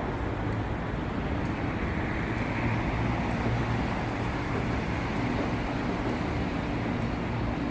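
Steady hum and rumble of an MLR electric multiple unit train, with low droning tones under a broad noise.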